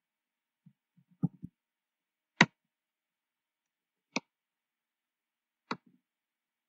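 A handful of separate computer keyboard keystrokes, sharp clicks spaced irregularly, the loudest about two and a half seconds in.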